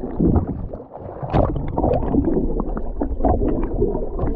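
Muffled gurgling and rushing water heard through an underwater camera's housing, with many small clicks and knocks.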